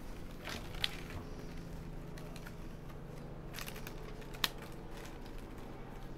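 Plastic baling straps clicking and rustling as a woven strap basket is turned and pushed tight by hand, with a sharp click about a second in and another at about four and a half seconds. A steady low hum runs underneath and cuts off at the end.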